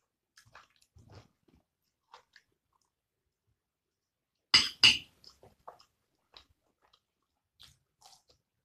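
Close-up eating sounds of shrimp fried rice with raw cucumber slices: soft, scattered chewing and crunching clicks. About halfway through come two sharp, loud knocks in quick succession.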